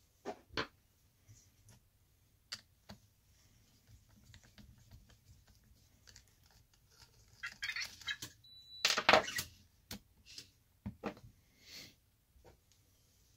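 Scattered light clicks and knocks of a hex driver and plastic RC car parts being handled as a front wheel comes off a HoBao EPX RC car, with a louder clatter about nine seconds in.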